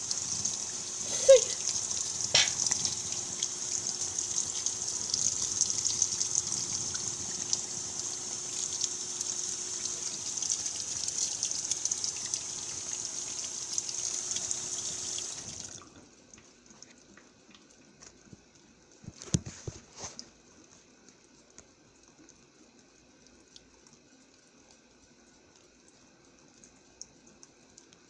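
Roper top-load washing machine filling: water hisses steadily into the tub over a faint hum, then the fill cuts off suddenly about halfway through. A few seconds later come two or three short knocks.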